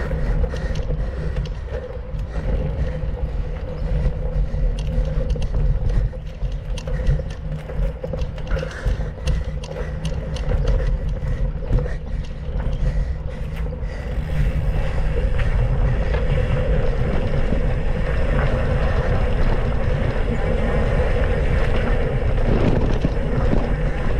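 A mountain bike riding a dirt trail: the frame and parts rattle and click over the bumps, with steady wind rushing over the microphone.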